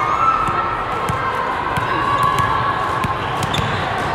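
Spectators chattering in a large gym hall, with a few dull thuds of a volleyball bouncing on the hardwood court.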